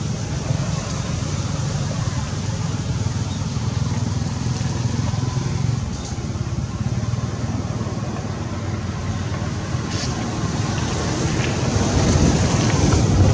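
Steady low outdoor rumble, growing a little louder near the end, with a few faint ticks.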